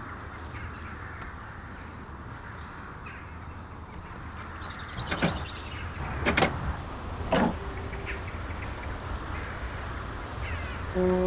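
Ride-on lawn mower engine running steadily, with three quick whooshes that dip and rise in pitch about a second apart midway through. Faint bird chirps in the first half.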